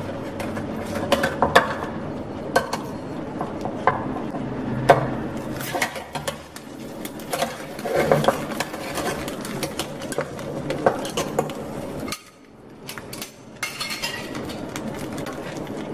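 Two metal spatulas clinking and scraping against a metal frying pan while an omelette cooked on banana leaf is turned over, in many short irregular clinks.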